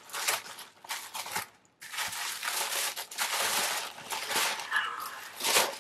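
Tissue paper crinkling and rustling as hands unfold it. There are short bursts at first, a brief pause about a second and a half in, then steadier rustling.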